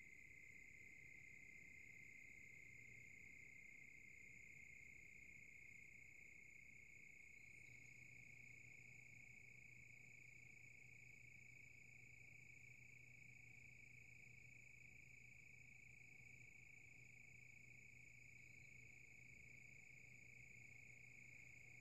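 Silverstone SX-600 power supply fan slowing down, heard faintly: a steady high-pitched tone with a low buzzing rattle that comes in about seven seconds in. The rattle at low fan speed is a fault the owner doubts is normal.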